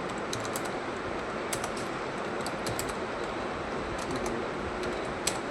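Computer keyboard being typed on: irregular short runs of key clicks, with one louder keystroke near the end, over a steady background hiss.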